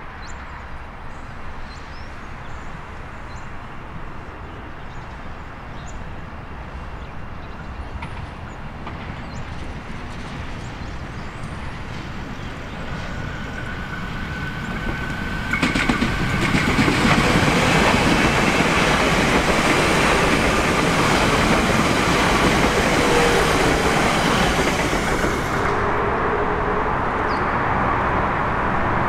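Siemens Nexas electric suburban train approaching and passing, its rumble building slowly and then jumping much louder about halfway as it draws level, with wheel-on-rail noise and a faint motor tone. Near the end the sound cuts abruptly to a steadier, quieter rumble of a Comeng electric train.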